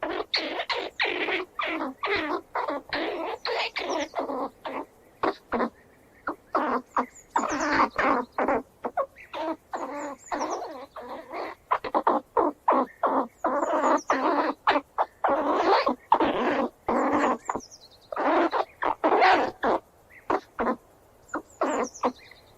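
Squirrel squealing in rapid runs of short calls, bout after bout with short pauses between, with a few thin high squeaks on top.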